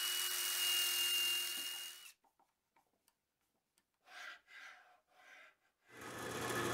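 Cordless drill running steadily for about two seconds as it bores a pilot hole into a wooden guide rail, then stopping abruptly. A few soft handling knocks follow, and near the end a steady electric motor hum builds up.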